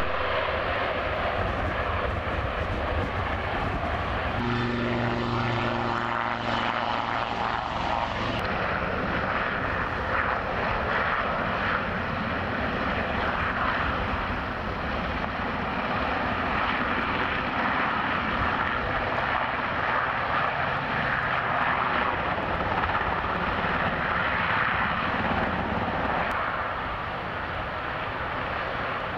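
Westland Sea King helicopters running close by: steady turbine and rotor noise from hovering and ground-running aircraft. A low hum with a few steady tones sounds from about four to eight seconds in, then the sound changes abruptly.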